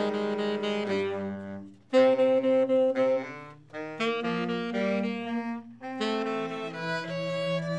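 A saxophone ensemble playing held chords, several saxophones sounding together in phrases with short breaks between them, about two, three and a half, and six seconds in.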